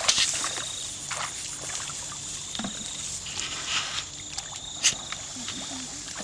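Feet wading through shallow water in a flooded rice paddy, with a few splashes and sloshes about a second apart.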